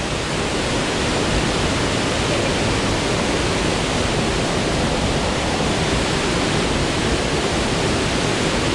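Waterfall rushing: a steady, loud, even noise of falling water close to the microphone.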